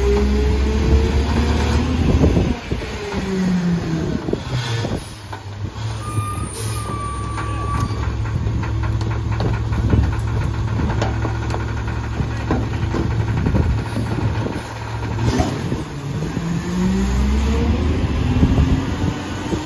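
Engine of a McNeilus rear-loader garbage truck rising in pitch and falling back as the packer is cycled, then idling while trash is tipped into the hopper with scattered clattering knocks. Near the end the engine rises in pitch again for the next packer cycle.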